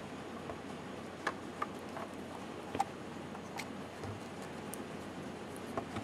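A handful of light, irregular clicks and ticks from fingers handling a laptop ZIF connector and its flat ribbon cable, plastic and cable tapping and catching, over a steady low hiss.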